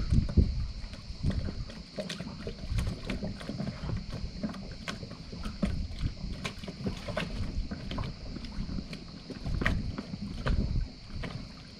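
Wind rumbling unevenly on the microphone, with many small clicks and light knocks scattered throughout.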